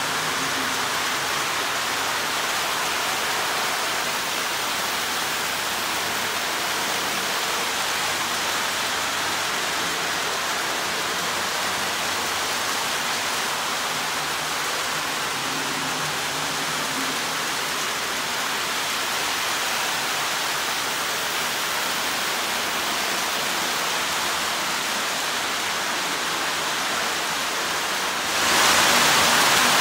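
Lionel O-gauge toy trains running on three-rail tinplate track: a steady rushing noise of wheels and motors. It grows suddenly louder near the end as a train passes close by.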